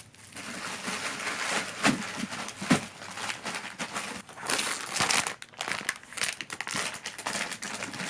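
Plastic cling film crinkling and rustling irregularly as a film-wrapped plate is handled and packed into a cooler box, with a couple of soft knocks about two seconds in.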